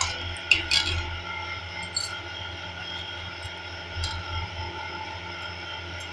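A ladle stirring thin semolina batter in a stainless steel bowl, clinking and scraping against the metal a few times, the sharpest clink about half a second in. A steady low hum runs underneath.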